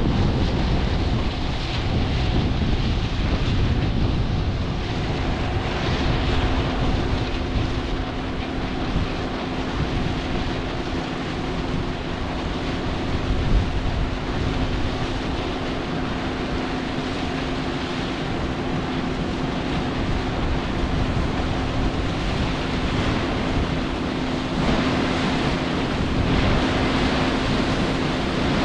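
John Deere 9500 combine's turbocharged six-cylinder diesel running steadily under load while harvesting corn, a constant machine hum over a broad rushing noise, with wind buffeting the microphone.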